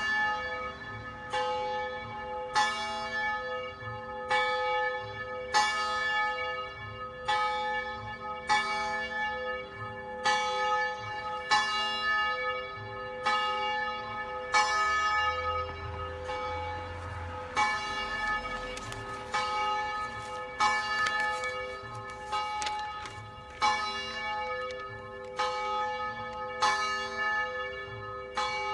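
Church bell tolling, rung by hand in memory of those lost to COVID-19: a strike about every second and a half, each ring lasting into the next.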